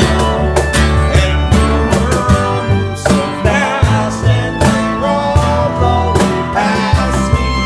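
Acoustic string band playing a bluegrass-style song: upright bass, strummed acoustic guitar and bowed fiddle, with a man singing the melody.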